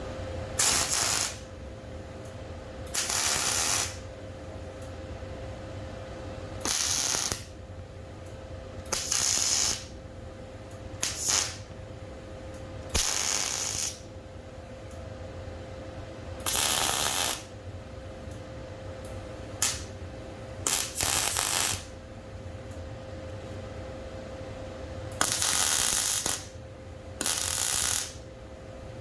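Welder laying short tack or stitch welds: about a dozen crackling bursts of half a second to a second each, at irregular intervals, over a faint steady hum.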